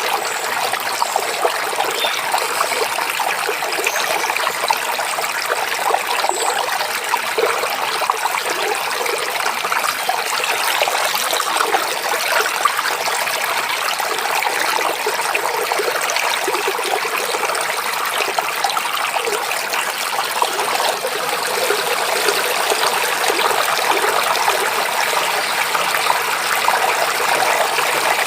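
Forest stream babbling and trickling steadily, a bright, even splashing with little deep rumble.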